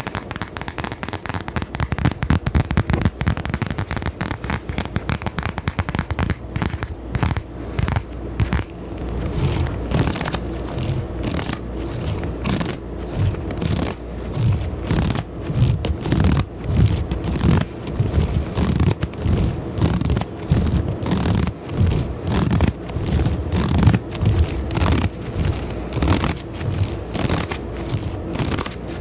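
Dense, rapid crackling and scratching rubbed close against a microphone, the many clicks a second of an ASMR trigger. It grows denser and louder about a third of the way in.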